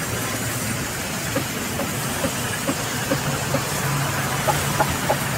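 Sawmill band resaw running as a plank is fed through it: a steady hissing machine noise with a string of short, light knocks from about a second and a half in. A low steady hum joins about three seconds in.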